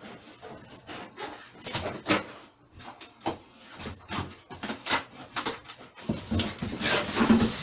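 Cardboard and plastic packaging rustling and scraping as parts are pulled out of a monitor box: irregular crinkles and scuffs, loudest near the end.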